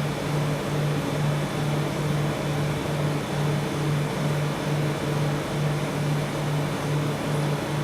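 Steady machine hum that pulses evenly about twice a second, over a constant hiss.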